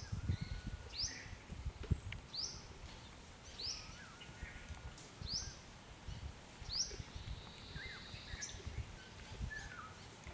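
A bird repeating a short, sharply rising call about every one and a half seconds, over low rustling and soft thuds.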